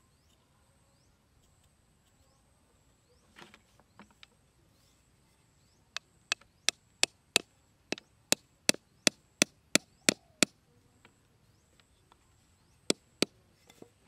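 A small hatchet knocking a wooden peg into hard dirt: a run of about thirteen sharp strikes at roughly three a second, then two more a couple of seconds later.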